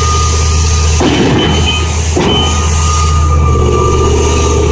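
Cat 6060 hydraulic mining shovel's large diesel power unit running steadily: a deep, even engine hum with a steady high whine above it. About a second in, a rougher rushing noise rises for about a second, then the steady running continues.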